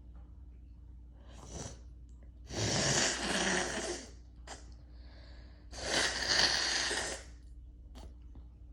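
A person sneezes forcefully twice, about three seconds apart. Each sneeze is a long, noisy blast lasting over a second, and a short breath comes before the first.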